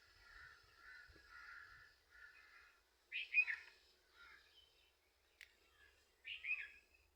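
Birds calling and chirping in the countryside: a soft run of repeated chirps, then two louder downward-sweeping calls, about three and six seconds in.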